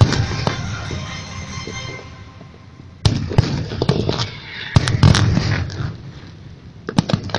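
Fireworks going off: bangs and sharp cracks with crackling. The first volley dies away, a new one starts suddenly about three seconds in, and a few more cracks follow near the end.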